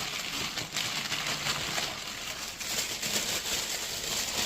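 Rustling and scuffing handling noise, uneven and crinkly, as a new sneaker and its packaging are moved about in the hands.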